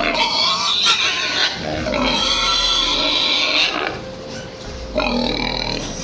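Pigs squealing loudly in a string of high, drawn-out squeals, with one long squeal in the middle and another near the end.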